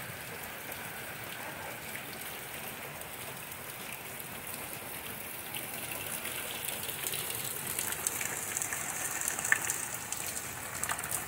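Rain falling steadily on a yard and pavement. Near the end it grows louder, with closer splashing and dripping as runoff from a fence pours into a plastic storage tote set out to catch rainwater.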